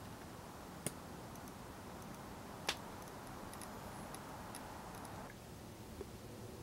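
Faint room tone with two sharp clicks about two seconds apart and a softer tick near the end.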